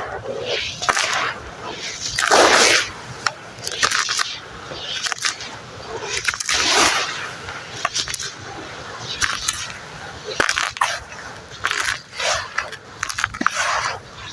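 Red sand crumbling into foamy water and being worked as a wet, gritty paste: irregular crunchy, squelching strokes every second or so, with small clicks in between.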